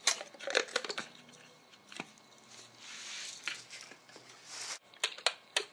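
Kitchen handling noises: scattered light clicks and taps, with two brief rustles in the middle and three quick sharp clicks near the end, as spices and peppercorns are handled over the meat.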